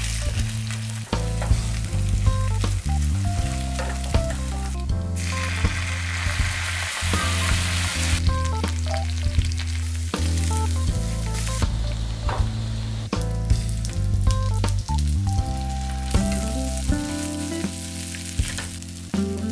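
Scrambled egg and green onion sizzling in a hot frying pan while a wooden spatula stirs and scrapes, with frequent light knocks against the pan. About five seconds in a louder hissing sizzle runs for roughly three seconds, as soy sauce scorches on the hot pan.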